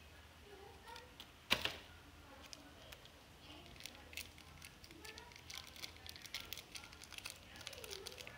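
Foil seasoning sachet crinkling as it is squeezed and shaken over instant noodles in a pot: a run of small crisp clicks that grows busier toward the end. A single sharp knock comes about one and a half seconds in.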